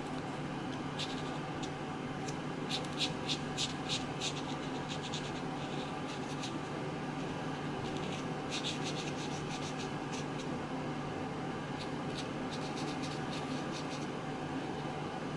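Felt-tip marker scratching short, quick strokes on origami paper, in several bursts of rapid strokes, over a steady low hum.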